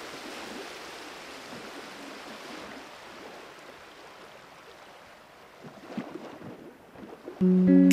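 Ocean surf washing over shoreline rocks, a steady rushing hiss that slowly fades. Guitar music comes in near the end.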